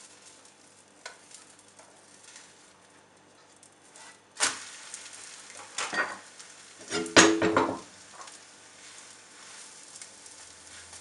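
An egg omelette sizzles low in hot oil in a non-stick frying pan as it is turned over and pressed with a spatula. Several sharp knocks and scrapes of spatula and pan break in: one about four seconds in, another near six seconds, and a louder cluster around seven seconds in.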